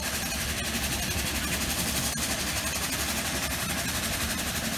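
Combine harvester's diesel engine running steadily at an even speed.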